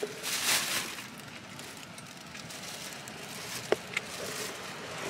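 Handling noise from gear being moved in a car's cargo area: a short burst of fabric rustling, then two light clicks close together near the end.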